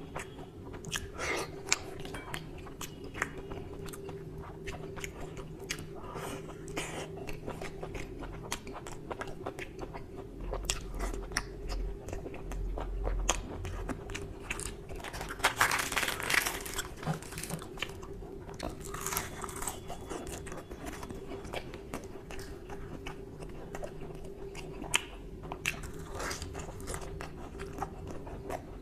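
Close-miked biting and chewing of mutton curry and luchi by hand, with many small wet clicks of the mouth and a louder stretch of eating a little past halfway.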